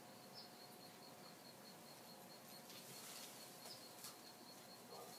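Near silence: faint outdoor ambience with a high insect chirp pulsing evenly about five times a second, and a few soft rustles in the second half.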